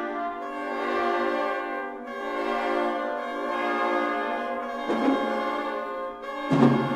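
Contemporary microtonal orchestral music: brass and woodwinds hold dense, sustained chords. An accented attack comes about five seconds in, and a louder accented chord with lower brass notes near the end.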